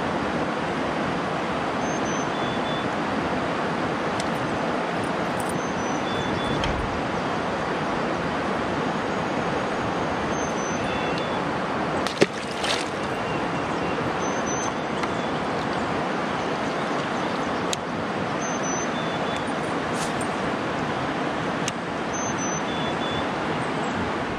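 Steady rushing of river water over a rocky shoal, with one brief sharp knock about halfway through.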